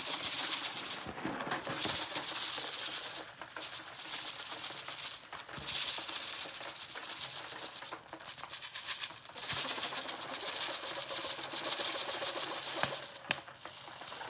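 Dry rice rattling and pouring through an upturned plastic water bottle into a balloon as the bottle is shaken, in spells of one to three seconds with short pauses between. A single sharp click near the end.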